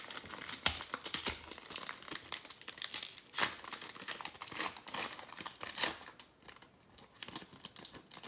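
A trading card pack's foil wrapper being torn open and crinkled by hand, a dense irregular crackle with a few sharper rips.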